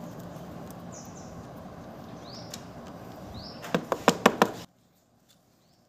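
A quick run of about six sharp clicks about four seconds in, as the motorcycle's oil drain plug comes out with the socket and old engine oil starts to drain. Faint short chirps are heard before the clicks, and the sound cuts off abruptly just after them.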